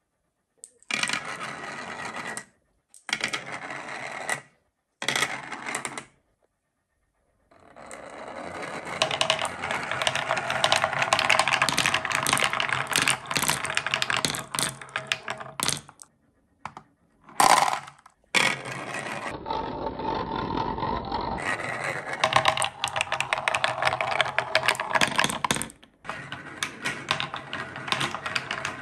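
Glass marbles rolling and clattering down a wooden marble-run slope, clicking off wooden block deflectors and clinking against one another as they gather in a toy tray. The sound comes in several stretches of a few seconds each, broken by short silent gaps.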